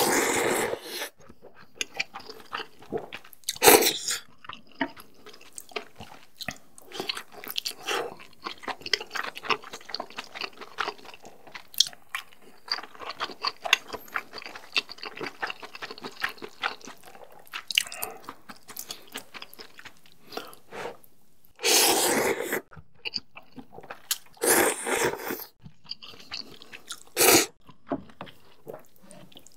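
A mouthful of instant noodles slurped loudly for about a second, then close-miked chewing with many small wet clicks and smacks. A few louder bursts of chewing noise come in the last third.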